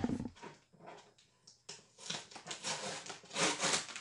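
Cardboard shipping box scraping and rubbing as it is handled: a rough, scratchy sound in short strokes in the second half, loudest near the end.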